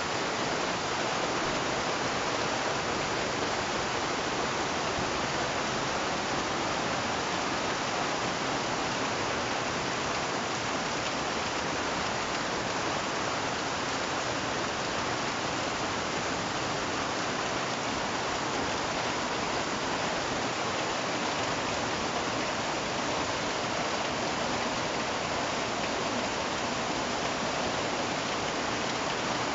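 Rainy-season rain falling steadily on trees, sand and a wooden shelter, an even hiss that never lets up.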